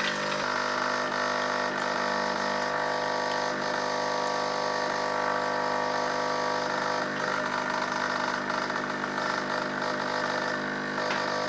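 BEEM 15-bar espresso machine's pump running with a steady hum, pushing water through the empty portafilter on its first-use rinse cycle.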